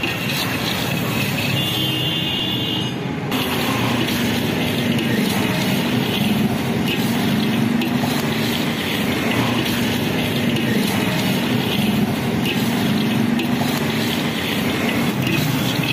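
Peanuts in the shell being stirred through hot roasting sand in a large iron wok with a metal scoop: a dense, steady rattling and scraping of shells and grit, over a steady low hum.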